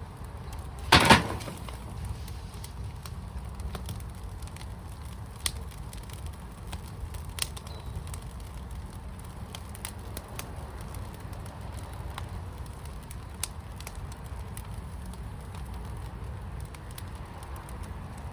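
Firepit fire crackling over a steady low rumble, with scattered sharp pops. There is one loud double pop about a second in.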